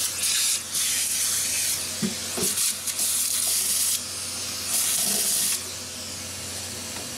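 Vacuum nozzle sucking up metal file shavings from a guitar fretboard and neck rest: a loud airy hiss in several bursts that start and stop as the nozzle moves, quieter over the last second and a half.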